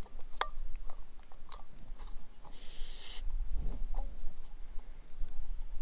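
Small metallic clicks and scrapes of an MSR canister burner being screwed onto its gas canister and its pot supports folded out, with a brief hiss about two and a half seconds in.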